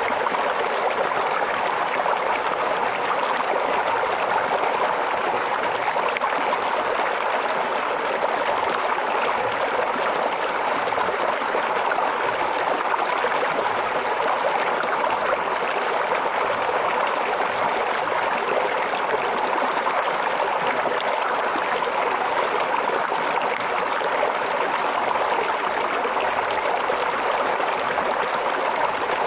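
A shallow stream babbling and trickling steadily over stones, an even rush of water with no break.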